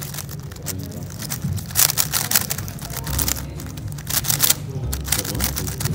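GAN 11 M Pro speed cube being turned fast in a solve: rapid runs of plastic clicking layer turns, coming in several quick bursts with short pauses between.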